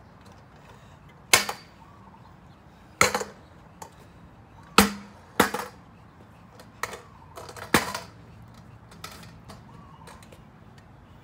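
Metal stunt scooter clanking hard against the pavement, five or six loud, sharp hits a second or two apart with a brief ring, then lighter knocks near the end, as the bent handlebar is worked to snap it.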